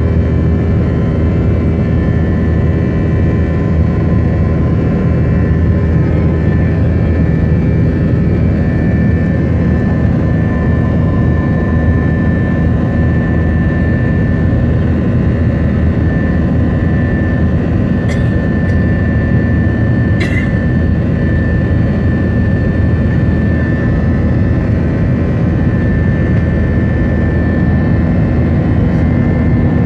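Jet engine of a LATAM airliner running steadily, a loud drone with a steady high whine over it that the uploader calls a strange noise. Two brief clicks come about 18 and 20 seconds in.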